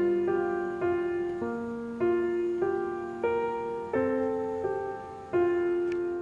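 Slow background piano music: single notes and chords struck every half second to a second, each dying away before the next.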